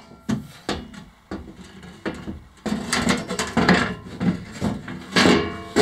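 A thin aluminum diamond-plate sheet being pushed and bent into place by hand. First come several sharp knocks, then two longer spells of scraping and wobbling sheet-metal rattle, one in the middle and one near the end.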